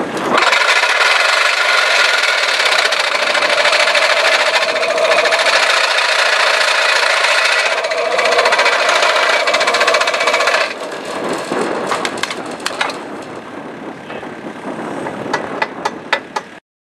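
Autoguide Postmaster excavator-mounted vibrating post driver running clamped on top of a wooden fence post, a loud steady buzzing rattle with a constant tone in it, as it vibrates the post into the ground. About ten seconds in it stops, leaving quieter machine noise and a run of sharp clicks near the end.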